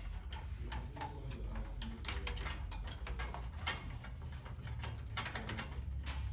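Ratchet wrench clicking in short runs as a bolt is tightened on a nest bracket.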